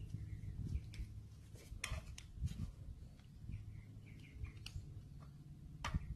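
Faint, scattered metal clicks and taps of a pick tool against the piston ring, piston and cylinder of a two-stroke trimmer engine as a ring is worked into the cylinder bore; the sharpest clicks come about two seconds in and near the end.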